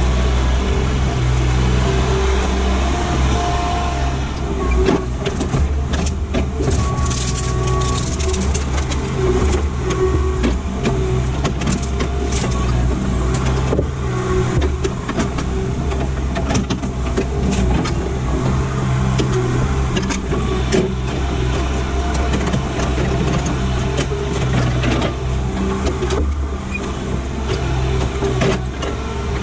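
Kubota SVL75-2 compact track loader's diesel engine running steadily as it works, with its pitch rising and falling a little and scattered sharp clicks and knocks.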